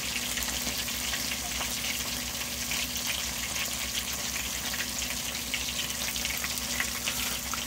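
Chicken wings coated in potato starch deep-frying in oil at 180 °C: a steady sizzle of bubbling oil with fine crackles, over a steady low hum.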